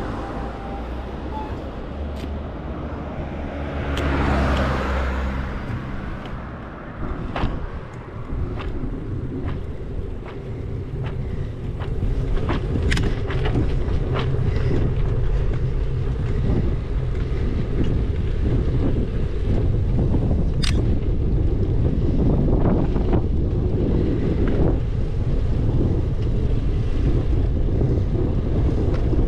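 A vehicle passes about four seconds in, its sound falling in pitch as it goes by. From about twelve seconds on, wind buffets the microphone of a camera riding on a moving bicycle, as a steady low rumble with scattered sharp clicks.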